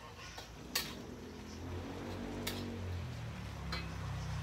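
A metal spatula strikes the side of a wok a few times, three sharp clinks, as food is stirred over a gas burner. A low hum builds up from about halfway through.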